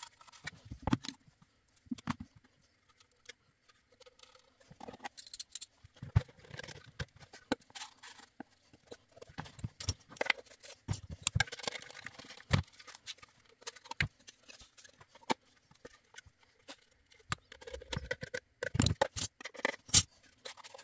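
Hands handling a wooden box and cardboard pieces on a cutting mat: scattered light knocks, taps and scrapes of wood on the mat, with soft rustling. A few sharper knocks come about twelve seconds in and again near the end.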